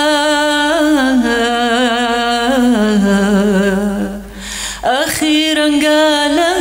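A woman singing unaccompanied into a microphone: long held vowels with vibrato, stepping down in pitch over the first few seconds. She takes a quick breath just after four seconds, then goes on with another held note.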